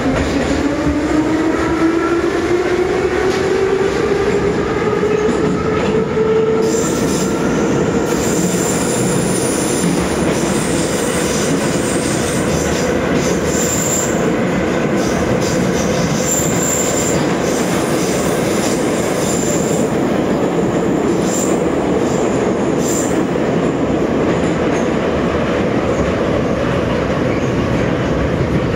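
Ezh3 metro car accelerating out of a station, its traction motors whining with a pitch that rises over the first six seconds or so and then levels off. After that comes the steady running noise of the car in the tunnel, with a few brief high squeals from the wheels.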